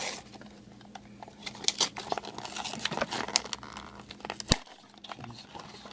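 Vinylmation blind-box packaging being opened by hand: crinkling and tearing with scattered small clicks, and one sharp snap about four and a half seconds in.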